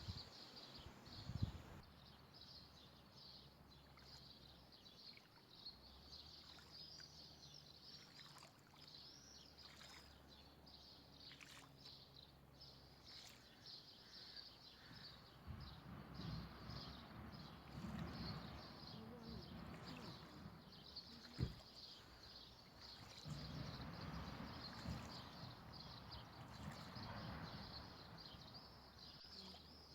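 Faint birds chirping continuously. There are two stretches of low rustling in the second half and a single sharp knock about two-thirds of the way through.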